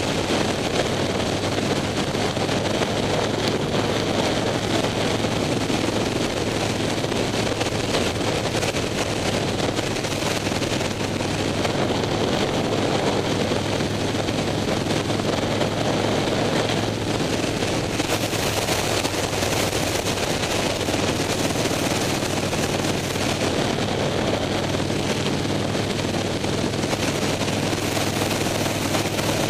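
Harley-Davidson Night Train's V-twin engine running steadily while riding at speed, mixed with wind rushing over the helmet-mounted microphone.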